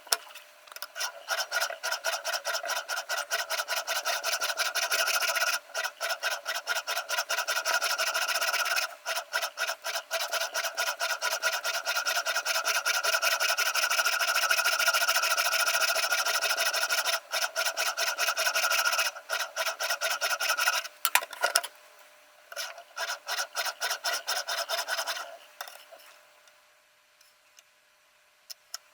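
Sharpening stone in a Ruixin Pro RX-008 guided sharpener rasping in rapid, even strokes along a VG10 Damascus kitchen knife edge, with a few short pauses. The stroking thins out and stops near the end.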